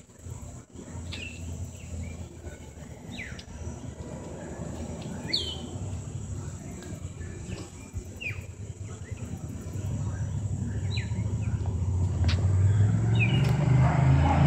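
Outdoor night ambience: scattered short chirping calls, each a quick sweep in pitch, over a faint steady high whine. In the second half a low engine rumble grows steadily louder, like a vehicle approaching.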